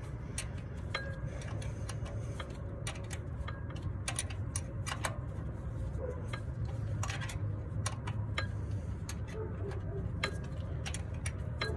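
Hand wrench clicking and clinking on the timing belt tensioner's mounting bolts as they are tightened, in irregular light metallic clicks over a low steady rumble.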